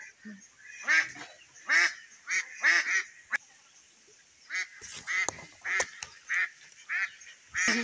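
Waterfowl calling over and over: about eleven short calls in two runs, with a pause of a second or so in between.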